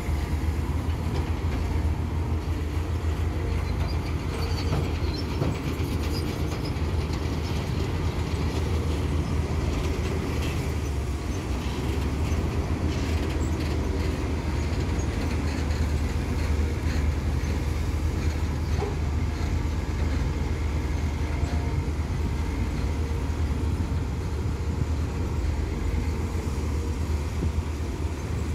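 Caterpillar 320D2 hydraulic excavator's diesel engine running steadily under load while it digs soil and loads it into a dump truck, a continuous low rumble.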